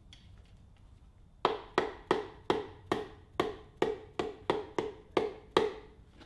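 Butt of a hammer handle tapping a piston down through a ring compressor into a Ford 302 V8 cylinder bore. About a dozen sharp taps come at roughly three a second, starting about a second and a half in, and each has a short metallic ring.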